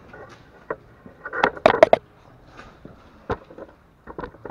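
Scattered knocks and clatters of handling, loudest in a quick cluster about one and a half to two seconds in, then a single sharp click a little past three seconds.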